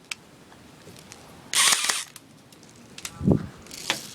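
Mini MP5 airsoft gun fired in single shots: a faint click at the start, a louder sharp burst about a second and a half in, and another click near the end.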